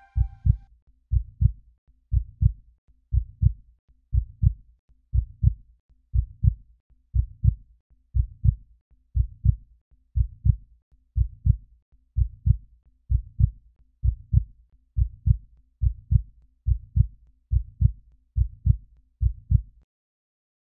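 Heartbeat sound effect: a steady run of low lub-dub double beats, about one a second, which stops near the end.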